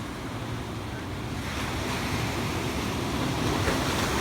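Ocean surf washing onto the beach, swelling louder about a second and a half in, with wind rumbling on the microphone.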